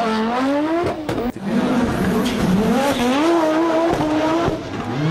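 Audi quattro Group B rally car's turbocharged five-cylinder engine revving hard, its pitch climbing and falling repeatedly through gear changes. It breaks off sharply and briefly about a second in.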